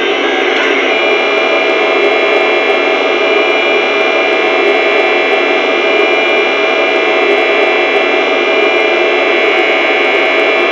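The onboard sound speaker of an LGB G-scale model Rhaetian Railway Ge 4/4 III electric locomotive playing a steady machine hum with a high whine on top, unbroken throughout.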